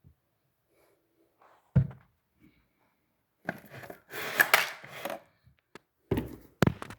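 Things being handled in a kitchen: a single knock about two seconds in, a clattering rustle in the middle, and two more knocks near the end.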